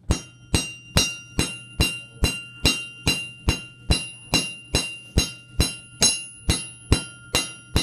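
Flat-face hammer striking a small metal rod on a railroad-rail anvil: a steady run of blows, about two and a half a second, each leaving a high ringing tone from the rail that carries between strikes. The round rod is being hammered square.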